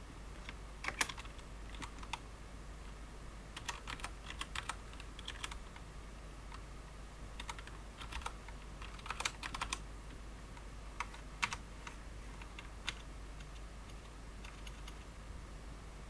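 Typing on a KBParadise V60 Mini mechanical keyboard with Cherry MX Clear switches: irregular runs of quick keystrokes with short pauses between them.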